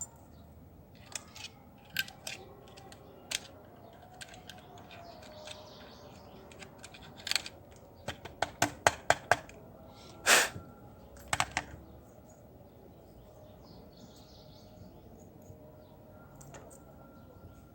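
Irregular sharp clicks and taps of small hard parts being handled while a hair clipper is worked on, with a quick run of about seven clicks in the middle and one louder, longer scraping knock just after.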